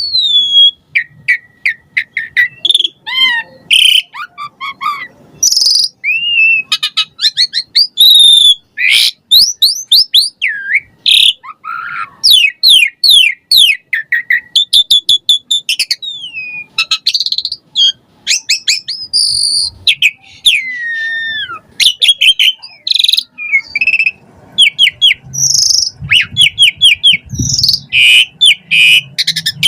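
Javan pied starling (jalak suren) singing a loud, varied song without pause: fast runs of repeated notes, sweeping whistles that slide up and down, and trills, filled with imitated calls of other birds.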